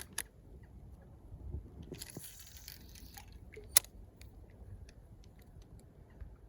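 Quiet handling rustle and low rumble with scattered small clicks. A brief scraping rustle comes about two seconds in, and one sharp click a little before four seconds in.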